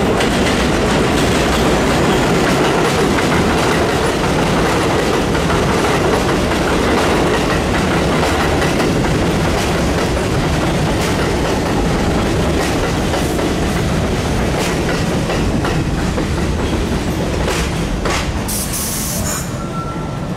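New York City subway R62A train running over an elevated steel structure, its wheels clattering over rail joints in a loud, steady rumble. A short hiss comes just before the end.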